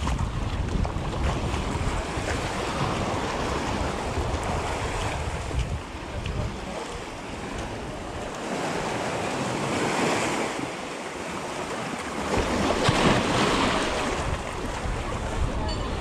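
Small waves washing up and back over a sandy shore, with two louder swells of surf about ten and thirteen seconds in. Wind buffets the microphone with a low rumble for the first six seconds and again near the end.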